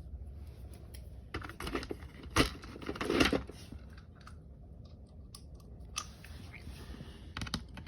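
Small clicks, scrapes and crunchy plastic rattles from handling a laptop and a small screwdriver. A busy cluster of knocks and scraping comes about two to three seconds in, with the loudest knock in the middle of it, and a few single clicks follow later.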